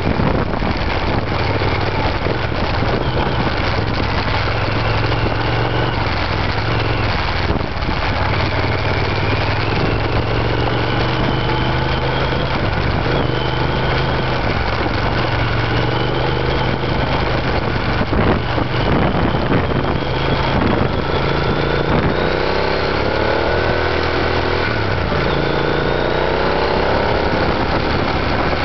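Triumph Scrambler's 865 cc parallel-twin engine running steadily as the motorcycle rides along a gravel road, with heavy wind and road noise over it. The engine note rises a few times in the later part as the bike accelerates.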